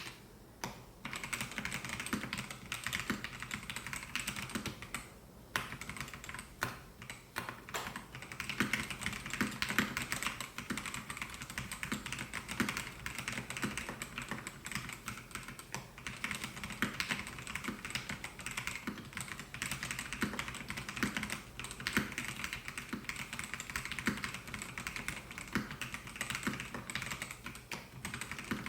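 Typing on a Melgeek Mojo68 mechanical keyboard with white linear switches: a dense, continuous run of key clicks and clacks, with brief lulls about a second in and around five seconds in.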